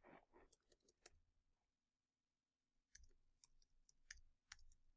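Near silence with a few faint, scattered computer keyboard clicks, keystrokes entering a password.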